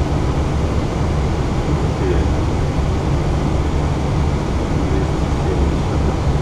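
Steady cockpit noise of an Airbus A320 in flight on approach: an even rush of airflow with a deep low rumble underneath.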